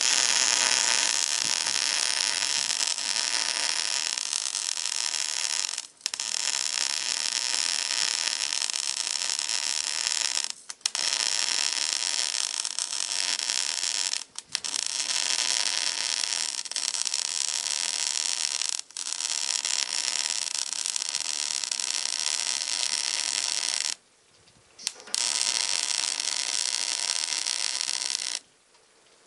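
Electric arc welding on a steel snow pusher blade: the steady sizzle of the arc in runs of about four seconds, broken by brief pauses between beads, with a longer break about 24 seconds in and the arc cutting off near the end.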